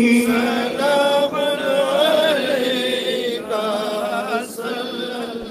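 Devotional chanting of a Salami, the sung salutation to the Prophet, in a man's voice through a microphone, with slow melodic phrases.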